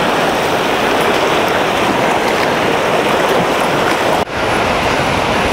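Fast mountain river rapids on the Stanislaus River rushing steadily over rocks, a loud even water roar with a momentary break about four seconds in.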